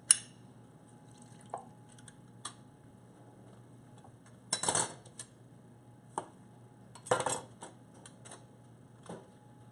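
Kitchen utensils and dishes knocking and clinking at scattered moments. A sharp clack right at the start is the loudest, and louder bursts of clatter come about halfway through and again about two-thirds in.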